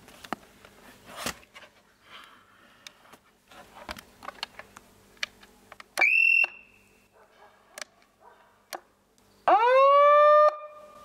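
Handheld megaphone being handled, with scattered clicks from its switch and strap. About six seconds in it gives a brief high-pitched beep, then near the end its siren sounds, rising quickly in pitch and holding a steady tone for about a second before cutting off.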